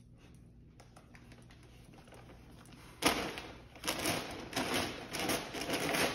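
Dogs ripping and crinkling gift-wrapping paper. It is faint at first, then loud, uneven crackling rips and rustles start suddenly about three seconds in.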